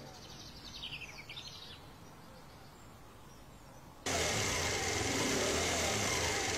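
A faint bird call about a second in. Then, from about four seconds, a motor scooter engine runs steadily, starting abruptly.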